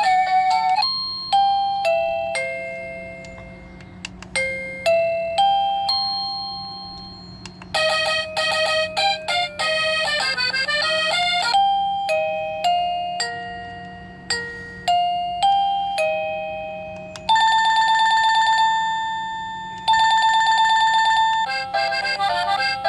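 Home Zone wireless doorbell receiver playing one electronic chime tune after another as its ring tunes are stepped through. Short melodies of decaying bell-like notes give way to a quick tinkling run of notes, then a steady trilling ring that stops briefly and starts again, and a fast tune near the end.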